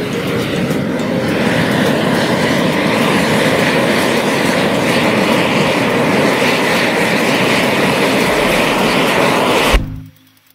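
Burning matchstick-and-sparkler jet on a toy truck, a loud steady hissing rush, cutting off abruptly about ten seconds in.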